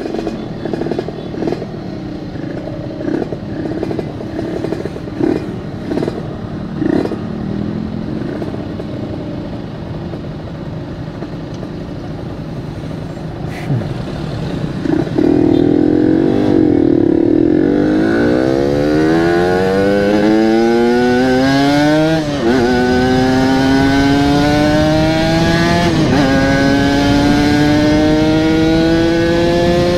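Yamaha RX-King 135cc two-stroke single-cylinder engine with a local aftermarket exhaust, running gently for the first half, then accelerating hard from about halfway: the note climbs in pitch, drops back at two gear changes and climbs again.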